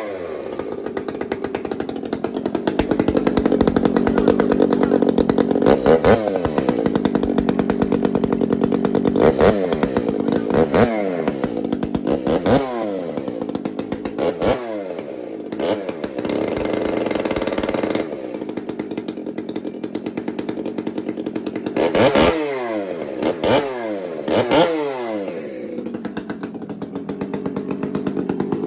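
Large two-stroke chainsaw fitted with an aftermarket Ripsaw muffler pipe, revved hard: the throttle is held open for a few seconds at a time, with repeated quick blips that each fall back to idle. Near the end it settles at a lower idle.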